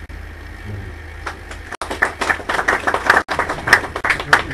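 A small audience clapping briefly: irregular, overlapping claps start about a second in and fade out near the end.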